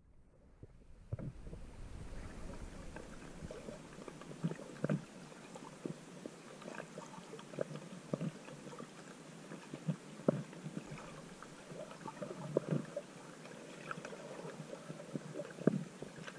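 Underwater ambience as picked up by a submerged camera: a low, steady rush with scattered irregular clicks and pops.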